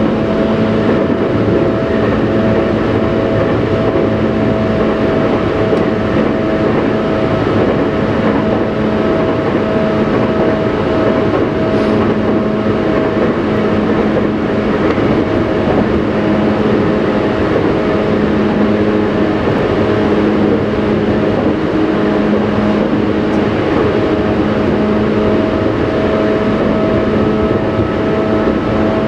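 Tobu Railway electric commuter train running at steady speed, heard from inside the front car: steady humming tones from the running gear over continuous rumbling wheel-on-rail noise.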